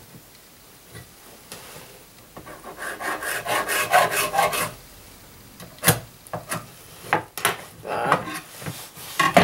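Marker pen scratching in short strokes across a melamine-faced board while a cut line is marked out. Several sharp knocks follow partway through, as the square and tools are shifted on the table, and then a few more strokes near the end.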